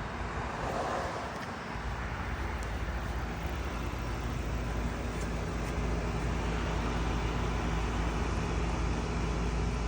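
Steady rushing hiss of water spraying from a cut, still-pressurised water line, with a low hum underneath.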